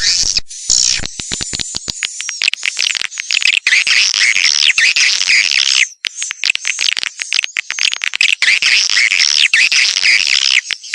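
Swiftlet lure call: a recording of dense, rapid, high-pitched swiftlet chirping and twittering with many sharp clicks mixed in, briefly breaking off about six seconds in. This is the call played from swiftlet houses to draw wild swiftlets in to roost and nest.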